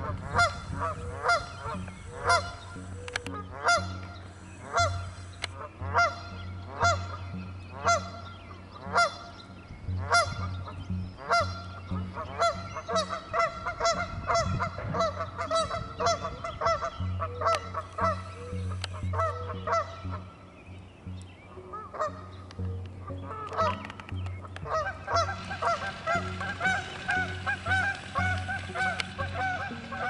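Canada geese honking. At first a single goose honks about once a second. Near the end several geese call over each other, faster and without pause.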